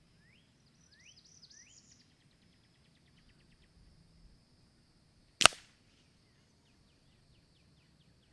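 One shot from a Weihrauch HW 97K .177 underlever spring-piston air rifle heard from the target end, 25 yards downrange: a single sharp crack about five and a half seconds in.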